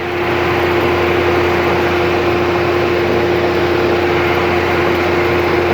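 Planer running idle with no board fed: a loud, steady drone with a constant pitched hum.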